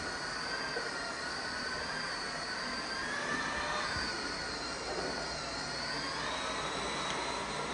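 Ride-on toy train's electric motor running with a wavering whine as it circles its plastic track, over the steady hiss of a fog machine pumping out fog.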